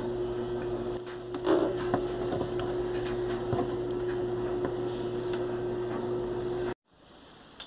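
A steady electrical hum, one mid-pitched tone over a lower drone, with scattered light clicks and taps of parts being handled on a wooden desk and a louder knock about one and a half seconds in. The hum cuts off abruptly near the end, leaving only faint room noise.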